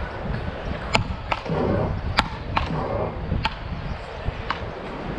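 A rally of sharp ball hits on solid paddle rackets, about one a second, some louder and some fainter.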